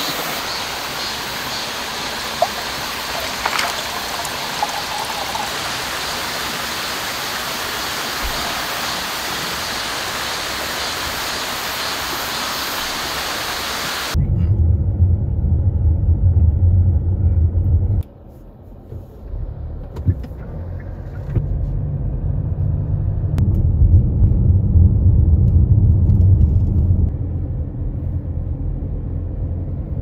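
Rushing mountain stream water, a steady loud hiss, for about the first half. About fourteen seconds in it cuts to the low rumble of a car's road and engine noise heard from inside the cabin, with a brief drop about four seconds later.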